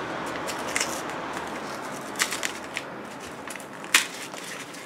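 Brown paper parcel being handled and torn open: scattered crackles and short rips of paper and tape, the sharpest about four seconds in, over a steady background hiss.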